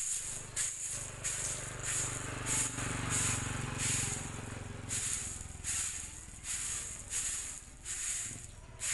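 Soft grass broom sweeping scattered dried yellow corn kernels across a concrete floor: rhythmic swishes about twice a second, with the kernels rattling as they are pushed.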